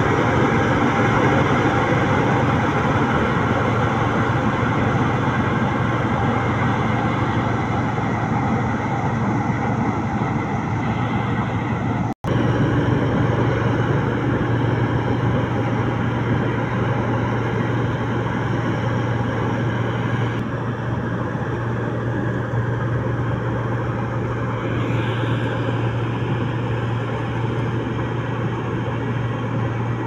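New Holland Clayson 8070 combine harvester running steadily as it cuts and threshes wheat: a constant low drone. The sound drops out for an instant about twelve seconds in.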